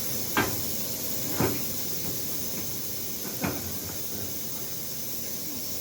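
Three sharp knocks, the second about a second after the first and the third two seconds later, over a steady hiss.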